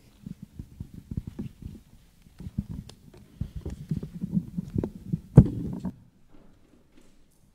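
Microphone handling noise: a dense run of dull low thumps and rumbles as the lectern microphone is handled, with one louder bump about five seconds in, stopping about a second before the end.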